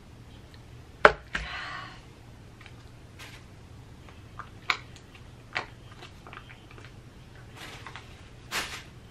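Handling noises from a baby-food squeeze pouch and a paper napkin: a sharp click about a second in followed by a short rustle, then a few lighter clicks and another brief rustle with a click near the end.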